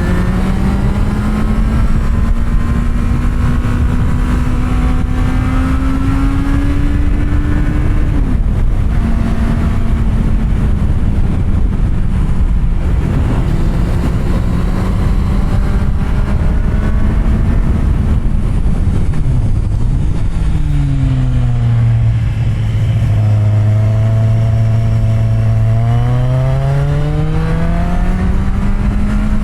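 Kawasaki Z750R's inline-four engine under way, holding fairly steady revs and easing off about a third of the way in. Near the end the revs drop low for a few seconds, then rise again. Wind rush runs under the engine.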